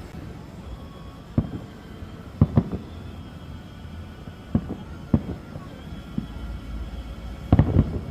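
Fireworks going off: separate loud bangs a second or two apart, with quick clusters of two or three near the middle and the end, each trailing off briefly, over a low steady rumble.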